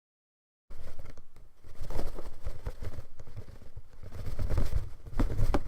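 Dead silence for under a second, then a harsh rumbling, crackling noise with a strong deep rumble that swells and fades unevenly.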